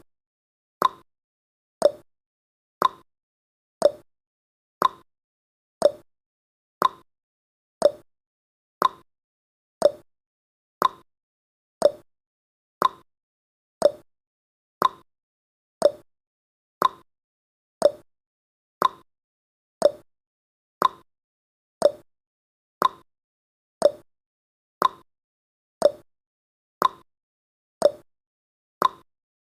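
Countdown timer ticking sound effect: one short, sharp tick each second, alternating between a higher and a lower tick like a clock's tick-tock.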